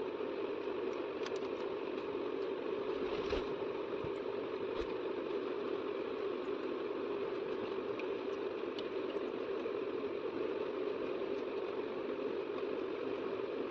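A steady machine hum throughout, with soft squelching and a few faint clicks as a thin gram-flour-and-curd kadhi batter is mixed by hand in a steel bowl.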